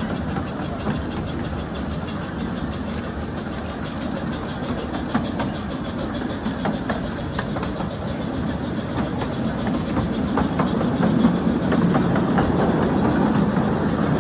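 Ride-on miniature railway train rolling along the track: a steady rumble of steel wheels on the rails, with irregular clicks over the rail joints, growing a little louder near the end.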